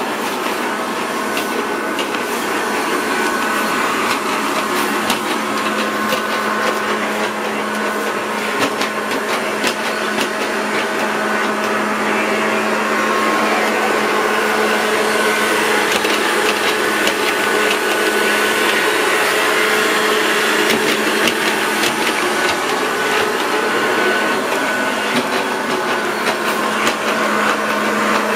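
SO-ZI robot vacuum cleaner running: a steady motor hum and whir with many small clicks.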